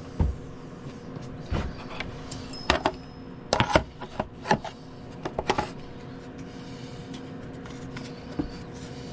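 Clicks, knocks and light clatter from handling metal wrench parts and a container, as the basin wrench parts are readied for an Evapo-Rust soak. The hits come in a string through the first six seconds, then only a couple more, over a steady low hum.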